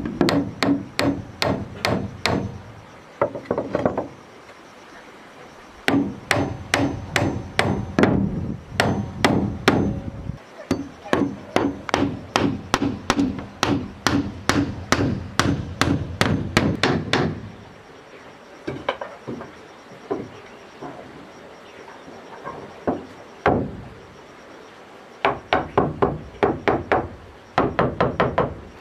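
Hammer blows on wood, about two a second, in runs of steady hammering broken by short pauses, as wooden house walls are put up.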